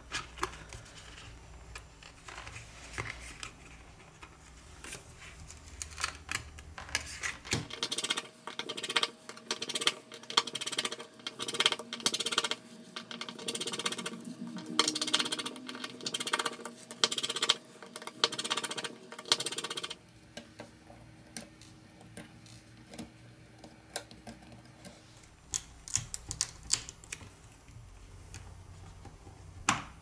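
Irregular light clicks and taps of hands, a plastic card and a pry tool against a Samsung Galaxy S7 edge as its glass back cover is separated and its internal plastic antenna panel is worked loose. The clicks come thickest in the middle stretch.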